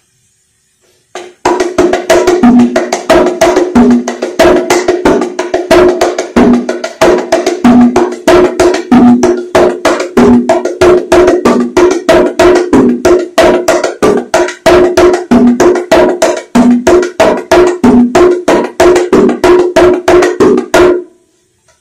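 Pair of bongos played with bare hands in a steady rhythm of about four strokes a second, alternating between the higher-pitched small drum and the deeper large drum. It starts about a second and a half in and stops about a second before the end.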